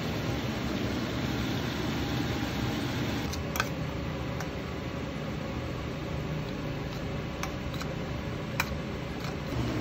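A steady rushing hum runs throughout. Over it come a few sharp clinks of a metal spoon against a ceramic bowl as a sauce is stirred, the loudest about three and a half and eight and a half seconds in.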